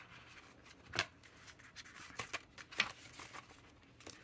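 Cards of a ring-bound swatch book being leafed through and handled: faint rustling with a few soft clicks, the sharpest about a second in.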